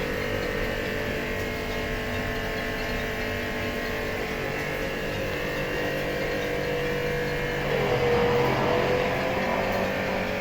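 Jet-spray pressure-washer pump running steadily, with water spraying. About eight seconds in, the sound gets louder and changes pitch.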